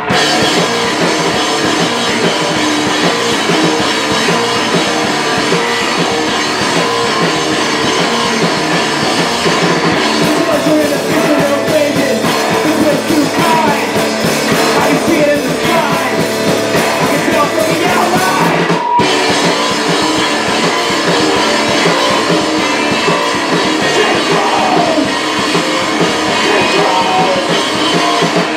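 Live post-punk band playing loud: electric guitars, bass and a drum kit, with a man singing into the microphone. The sound drops out for an instant about two-thirds of the way through.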